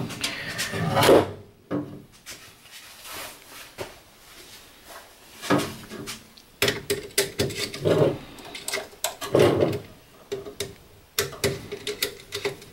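Hands handling a stiff 14-gauge wire in an electrical control panel: scattered clicks, taps and rubbing of wire against plastic wire duct and terminals, with a few louder rustling bursts.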